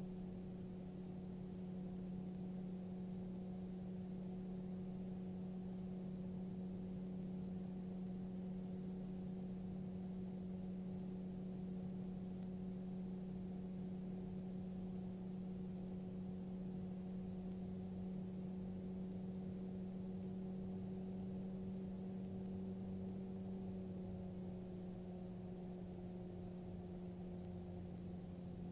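Magni M24 gyrocopter's engine and pusher propeller droning steadily in flight, a dull, muffled hum with a strong low tone and little high sound. The pitch dips slightly late on.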